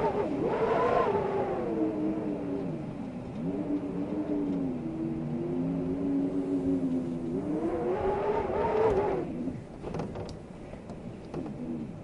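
Wind howling with a whistling pitch that swells up, sinks, and swells again in slow waves. It dies down near the end, where a few faint clicks are heard.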